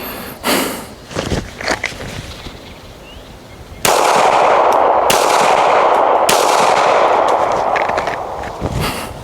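Several semi-automatic pistol shots, a few close together in the first two seconds, then more at roughly one-second intervals. From about four seconds in, a loud steady rushing noise sits under the shots until near the end.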